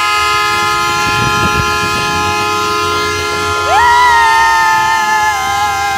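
Several vehicle horns held down together in a steady, continuous blare. About three and a half seconds in, another higher toot cuts in with a quick upward swoop and holds for about two seconds, sagging slightly in pitch.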